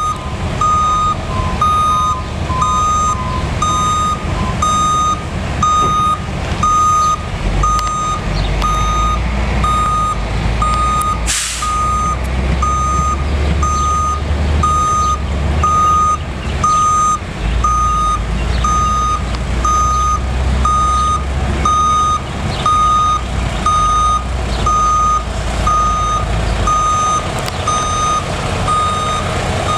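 Truck reversing alarm beeping steadily about once a second over the rumble of the truck's engine, which swells and eases as it backs up. A second, lower beeper sounds faster for the first few seconds. A short air-brake hiss comes about a third of the way through.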